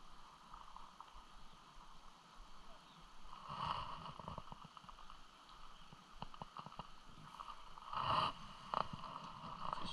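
Faint steady rush of churning water below a dam, with handling bumps about four seconds in and again near the end. Light clicks come from a spinning reel being wound.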